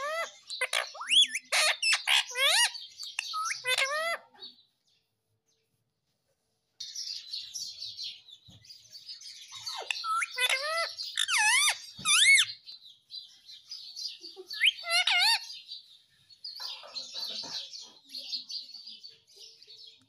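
Indian ringneck parakeet calling in bursts of quick, wavering chirps and squawks that rise and fall in pitch. The sound drops out completely for about two seconds after roughly four seconds, then the calls resume.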